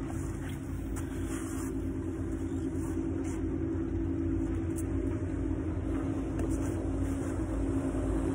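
Motorboat engine running steadily with a low hum and rumble, growing gradually louder as the boat approaches.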